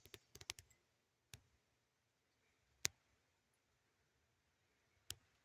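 Near silence broken by a few sharp, light clicks: a quick cluster right at the start, then single clicks spaced a second or more apart, the loudest about three seconds in.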